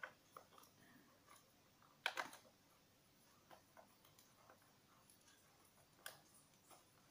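Faint, scattered plastic clicks and taps from a toy screwdriver turning a screw into a take-apart plastic toy truck and from the toy parts being handled, with a sharper clatter about two seconds in and again near six seconds.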